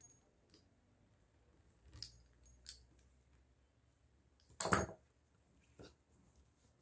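Light clicks and taps of a fluted metal pastry wheel trimming the edges of a rolled dough strip on a marble worktop. A little before five seconds in there is one louder, short clatter as the wheel is set down on the marble.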